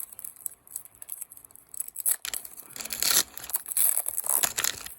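Foil wrapper of a Pokémon booster pack being torn open and crinkled: light crackles at first, then louder tearing and rustling in the second half.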